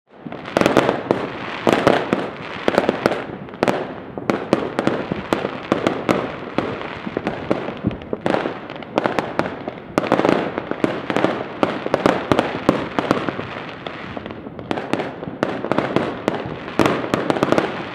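Many fireworks and firecrackers going off at once: a dense, continuous crackle of overlapping bangs and pops that starts suddenly.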